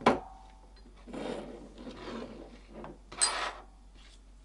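Handling noise from a compressed-air line assembly with brass quick-connect fittings, a plastic in-line filter and a rubber hose, moved about and set down on a workbench. A sharp knock with a short metallic ring comes at the start and is the loudest sound. Rubbing and scraping follow, with a louder scrape about three seconds in.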